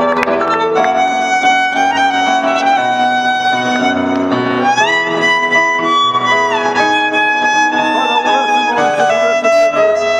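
Violin-led instrumental music with long held notes; the melody slides up in pitch about four and a half seconds in and drops back down a couple of seconds later.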